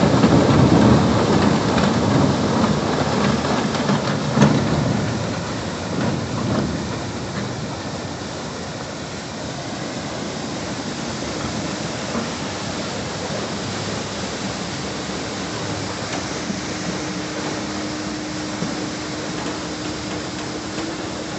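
Cutter suction dredger at work: a steady rushing, rumbling noise, louder over the first five seconds or so, with a steady hum coming in about two thirds of the way through.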